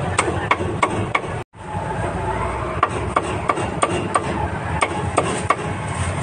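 Cleaver chopping grilled meat on a wooden chopping block: a steady run of sharp chops, about three a second, with a brief break about a second and a half in.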